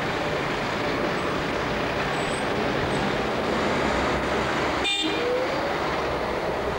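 Busy city street traffic: a steady hum of cars and buses passing, heard through a camcorder microphone, with a brief break about five seconds in.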